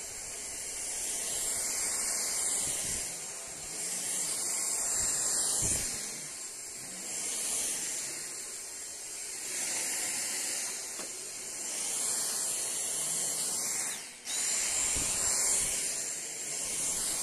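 A Dyson DC59 Motorhead cordless stick vacuum running, its small high-speed motor giving a steady high whine and airy hiss that swells and fades every couple of seconds as the floor head is worked back and forth over a rug. About fourteen seconds in the motor cuts out for a moment and whines back up to speed.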